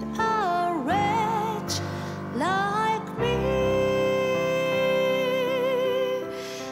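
Background music: a wavering melody with sliding notes and one long held note over sustained chords.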